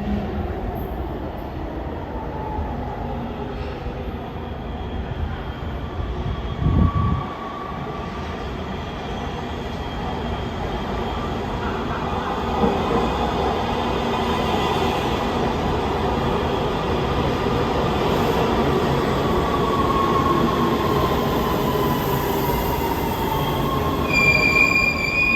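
LA Metro B/D Line subway train running through the underground station, its rumble growing louder partway through and its motor whine falling in pitch as it slows, with high wheel squeal near the end. A short thump about seven seconds in.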